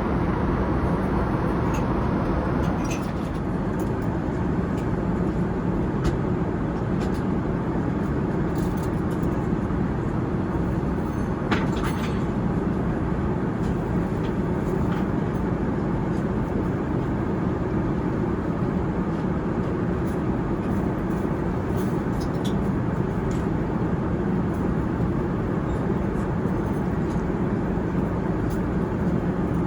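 Steady cabin noise of a Boeing 787-9 airliner in cruise: the even rush of engines and airflow. A few faint clicks are scattered through it.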